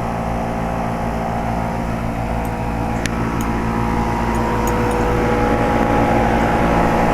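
2007 Carrier 2.5-ton single-stage condensing unit running: a steady compressor hum under the condenser fan's whoosh. The owner finds it noisier than it should be and suspects it may be low on R-22 refrigerant.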